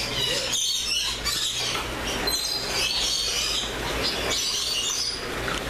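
A flock of small aviary birds chirping and calling over one another in a dense, continuous chatter, with a low steady rumble underneath.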